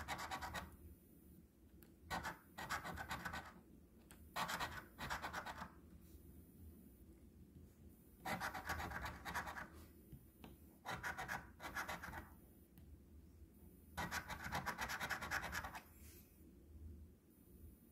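A large metal coin scratching the coating off a paper scratch-off lottery ticket, in about six or seven bouts of one to two seconds each with short pauses between.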